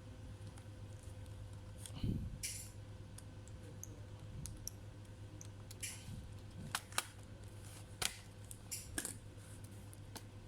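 Scattered small clicks and taps from handling a laptop's parts and tools, with a dull thud about two seconds in and sharper clicks around the seventh to ninth seconds, over a steady low hum.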